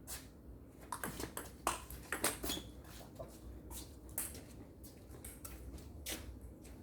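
Table tennis ball being struck back and forth in a rally, a string of sharp clicks as it hits the bats and the table. The clicks come irregularly, thickest in the first three seconds.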